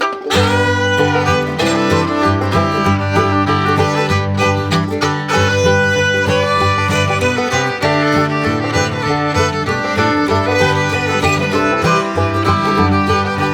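Upbeat bluegrass-style background music with fiddle, guitar and banjo.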